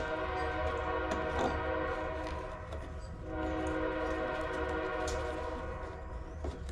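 Train horn sounding, a steady chord of several tones held in two long blasts, the second starting about halfway through.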